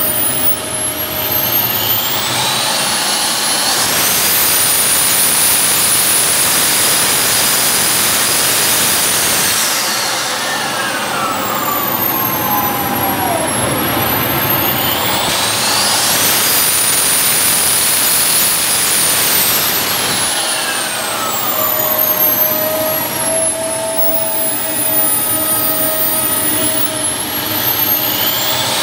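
Model jet turbine in a BVM Super Bandit running on the ground during an engine test run. Its whine climbs, holds high for several seconds, then winds down. This happens twice, with a third run-up starting near the end.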